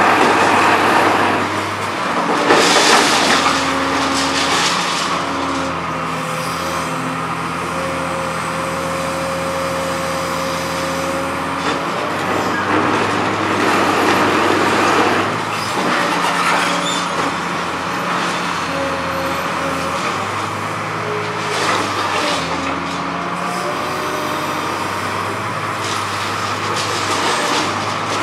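Liebherr R954B high reach demolition excavator's diesel engine and hydraulics running steadily under load, the engine note shifting now and then. Several loud noisy bursts of concrete being broken and rubble falling as the NPK concrete shear works the building.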